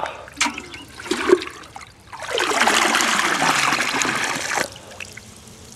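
Water sloshing and splashing as a stainless steel pot is dipped into open water. About two seconds in, a steady pour of water out of the pot splashes into the water below for about two and a half seconds, then stops.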